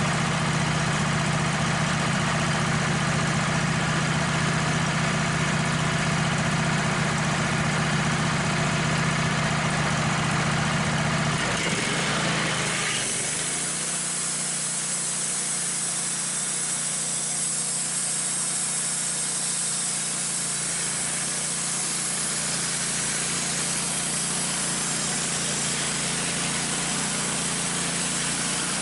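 Wood-Mizer LT15 band sawmill's engine idling steadily, then about twelve seconds in the low hum falls away and a steady high hiss takes over as the band blade is engaged and starts cutting into a walnut crotch log, throwing sawdust.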